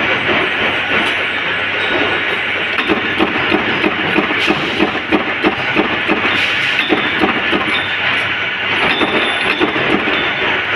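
Mechanical flywheel power press running and stamping rings out of metal strip, a rapid even clatter of about four to five strokes a second over a steady machine din.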